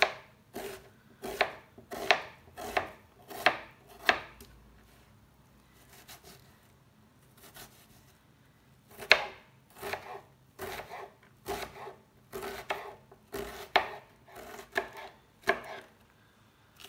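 Kitchen knife chopping onion on a plastic cutting board: sharp knocks of the blade on the board, about one or two a second, with a pause of about four seconds in the middle. Near the end the knife is slicing green pepper.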